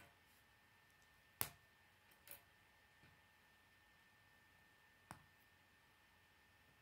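K'nex plastic rods and connectors clicking as they are snapped together by hand: three sharp clicks, the loudest about a second and a half in, another just after it and one about five seconds in, over near silence.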